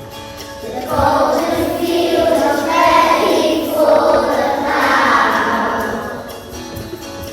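Children's voices singing a harvest song together with musical accompaniment; a loud sung phrase starts about a second in and eases off near the end.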